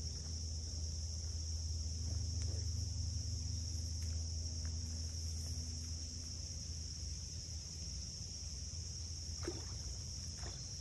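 Steady high-pitched chorus of crickets or other insects, over a low steady rumble.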